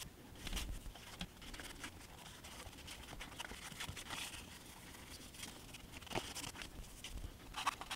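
Faint, soft scratching strokes of a paintbrush working paint, with small handling noises in between.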